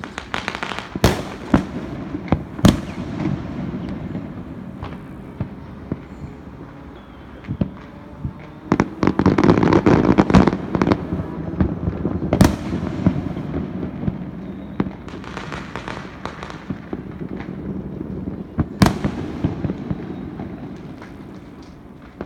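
Fireworks going off: scattered sharp single bangs, with a dense, loud run of rapid crackling about nine to eleven seconds in and a lighter run of crackling around fifteen to seventeen seconds.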